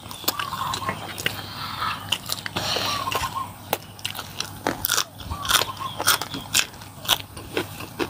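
Close-miked eating sounds: crunchy biting and chewing, with many sharp, irregular crunches.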